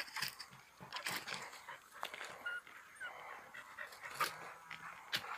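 An American Staffordshire terrier panting in quick, irregular breaths, with a few short whimpers.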